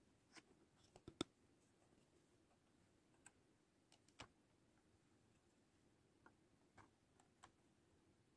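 Hard plastic toy-kitchen pieces clicking and tapping as a plastic tray and a cup are set down on a plastic shelf. A few short sharp clicks over near silence, the loudest a pair about a second in.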